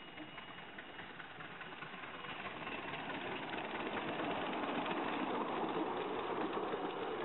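Miniature railway train, a small locomotive hauling loaded passenger cars on its track, running past with a mechanical clatter that grows louder as it approaches, peaks about five to six seconds in, then begins to ease.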